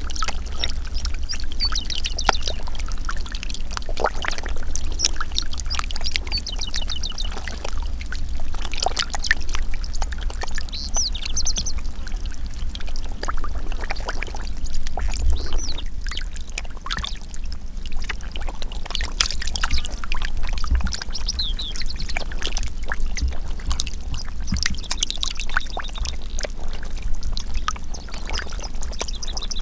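Water running down a shallow muddy channel crowded with small fish, with many quick splashes and slaps as they thrash at the surface. Short high chirps come and go over it.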